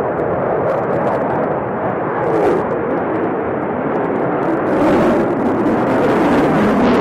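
Jet engine noise of a Sukhoi Flanker-family fighter flying overhead: a loud, steady noise with a few brief crackles. It grows louder and harsher about five seconds in.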